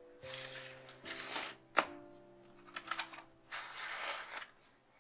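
Cardboard gift box lid and honeycomb paper wrapping handled as the box is closed: several short rustles of paper and card, with a sharp tap a little under two seconds in and a few small clicks around three seconds in. Soft background music with held notes plays underneath.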